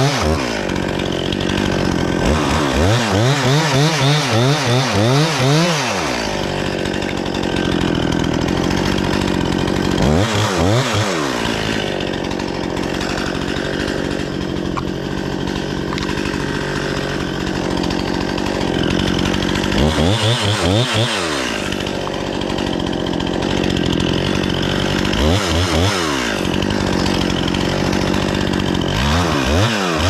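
Two-stroke top-handle chainsaw idling, revved up in pulsing bursts several times (about two seconds in, around ten, twenty and twenty-five seconds, and near the end) as it cuts dead ash wood.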